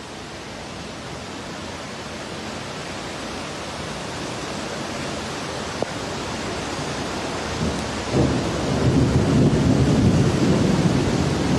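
Steady heavy rain hiss that slowly grows louder, joined about eight seconds in by a deep rolling rumble of thunder that lasts to the end.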